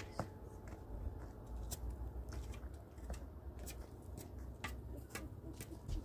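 Irregular light clicks and snaps, a few a second, over a low rumble.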